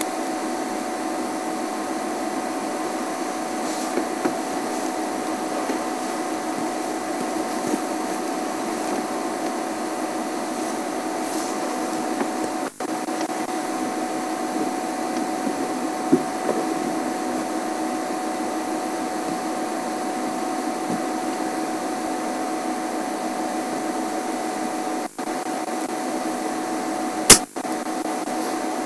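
Steady hissing hum with a constant whine. It drops out briefly twice, and a sharp click comes near the end.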